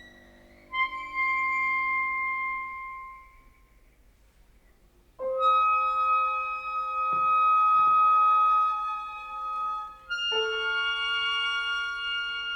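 Sparse contemporary chamber music for clarinet, violin, double bass, guitar and piano: a held high note, a near-silent pause of about two seconds, then two long sustained chords starting about five seconds apart, with a couple of soft knocks between them.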